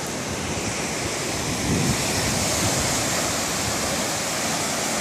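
Sea waves washing against the shore in a steady rush, swelling briefly about two seconds in.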